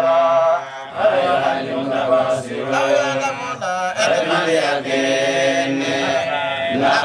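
Voices chanting in long, held melodic lines, with brief breaks about a second in and about halfway through.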